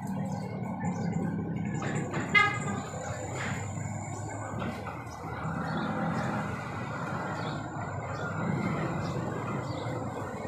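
Street ambience: a steady low rumble of traffic, with scattered faint clicks. About two seconds in there is one short, loud, high-pitched sound.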